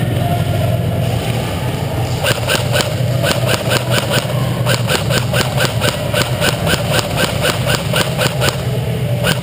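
Airsoft guns firing in rapid single shots, sharp clicks at about four a second starting about two seconds in, over a steady low hum.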